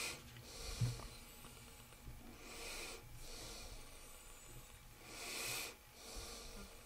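A person breathing out through the nose close to the microphone: slow, even breaths about every two and a half seconds. A short low knock about a second in.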